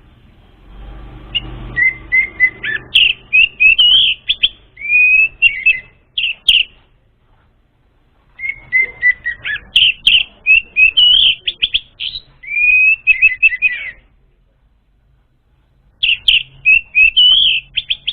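Orange-headed thrush singing: three bouts of rapid, varied whistled song phrases with quick up-and-down glides, separated by short pauses, the last bout running into the end.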